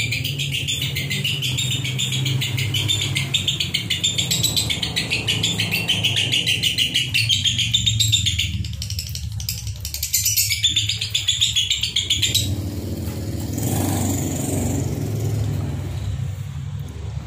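Lovebirds chattering in the nonstop 'konslet' style: a fast, unbroken high twittering with no pauses. It breaks off about twelve seconds in, leaving a steady low hum in the background.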